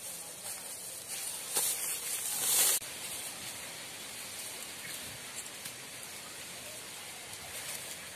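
Noisy rustling of grass as cows graze, with a louder burst of rustling between about one and a half and three seconds in that cuts off sharply.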